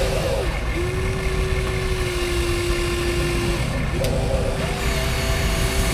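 Electric motors of radio-controlled construction machines whining steadily, the pitch sagging and recovering as they take load, over a constant rumble. One sharp click about four seconds in.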